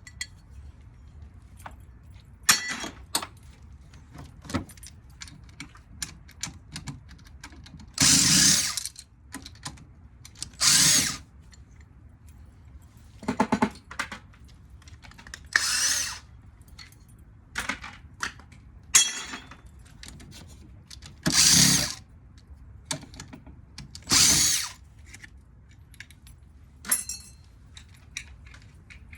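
Power drill run in about ten short bursts, each lasting up to about a second, while a ceiling fan motor is taken apart. Scattered clicks and clinks of metal parts are handled between the bursts.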